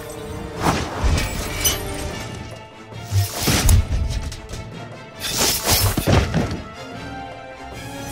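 Background music under a string of short magic-spell sound effects: sudden bright bursts and cracks, the loudest around three and a half and six seconds in.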